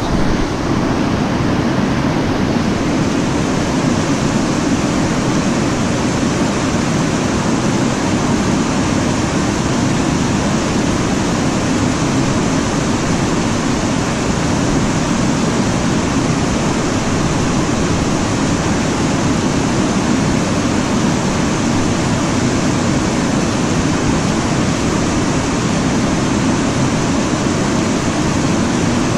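Loud, steady rush of whitewater: a river pouring over a sloping weir and churning in the foam at its foot.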